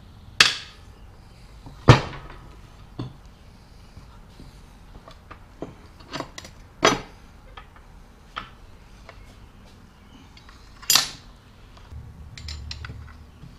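Scattered metal clanks and clinks of the mower deck's gearbox, bracket and bolts being handled and set down on the steel deck, sharpest about half a second and two seconds in and again near eleven seconds.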